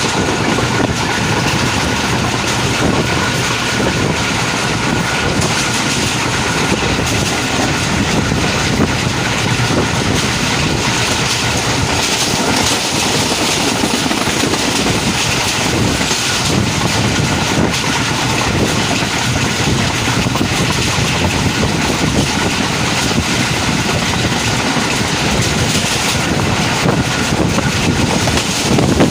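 Passenger train running along the track, its wheels clattering on the rails in a steady, loud rush of noise.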